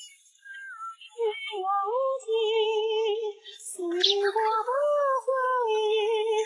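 A high female voice singing a slow melody in long, wavering held notes, as in a backing track.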